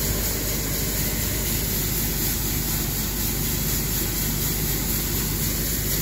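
Steady mechanical drone of running machinery, an even low hum with a hiss over it.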